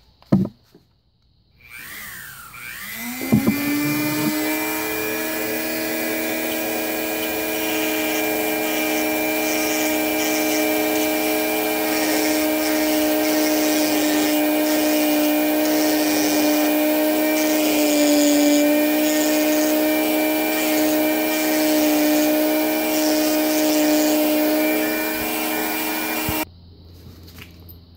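A Dremel rotary tool switches on about two seconds in and whines up to speed. It then runs at a steady high pitch while grinding and smoothing the rough tapered intake hole of a VW Beetle oil pump, porting it so oil flows better. It switches off near the end.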